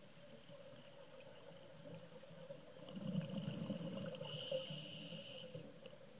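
Underwater recording with a faint steady hum; about three seconds in, a scuba diver's exhalation through the regulator sends out a rush of bubbles for a couple of seconds.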